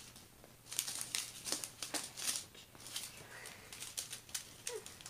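Small plastic packets of diamond-painting drills crinkling as they are handled and laid down on a canvas, in short irregular crackles.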